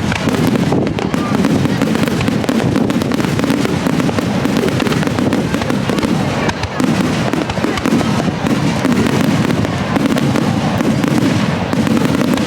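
Aerial firework shells bursting close overhead one after another, with dense crackling and popping that forms a continuous loud barrage. Strong wind buffets the microphone underneath the bursts.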